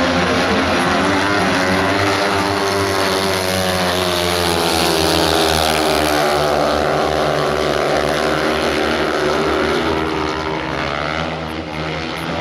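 Several speedway motorcycles with 500 cc single-cylinder engines racing round a shale oval. Their engine note rises and falls as the riders throttle through the bends and along the straights.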